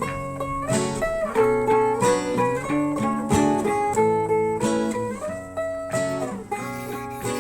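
Background music: an acoustic guitar playing an instrumental passage of picked notes, with a few notes slid between pitches.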